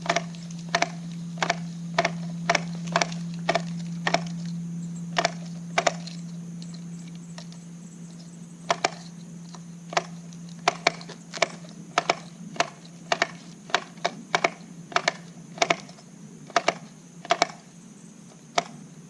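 ECHO Speed Feed 400 trimmer head being hand-cranked to wind trimmer line onto its spool, its ratchet clicking at about two clicks a second. A steady low hum runs underneath.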